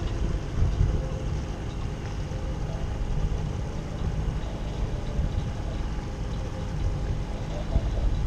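Small outboard motor on an inflatable dinghy running steadily at low speed.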